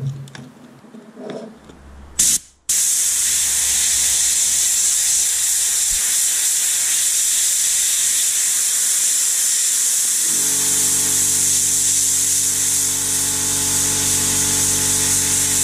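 DIY compressed-air soda blaster spraying baking soda onto a motorcycle engine: a loud, steady hiss that starts abruptly about two and a half seconds in.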